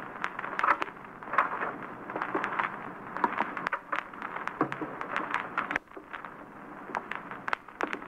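Crackle and hiss of an old radio transcription recording, with irregular sharp clicks and a few soft knocks scattered through.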